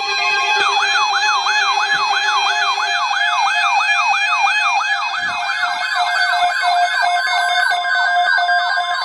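Weather alert radio's electronic siren alarm: a falling sweep repeated about three times a second, starting under a second in. A low pulsing tone stops about three seconds in, and a steady high tone joins the siren about seven seconds in.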